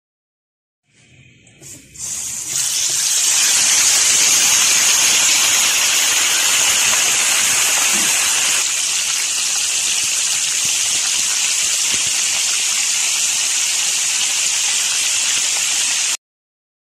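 Whole marinated chicken frying in hot oil in a pan: a loud, steady sizzle, faint at first and loud from about two seconds in, cutting off suddenly near the end.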